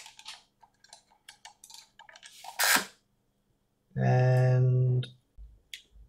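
Small clicks and rustles of a fibre-optic connector being pulled from the inspection probe and cleaned, with a short hiss about two and a half seconds in. About four seconds in comes a steady low hum of even pitch that lasts about a second.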